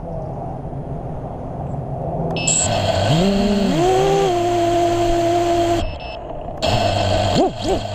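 FPV quadcopter's brushless motors throttling up without lifting off: a whine rises in steps and holds for about three seconds, cuts out, then comes back near the end in wavering upward glides. One propeller is mounted backwards.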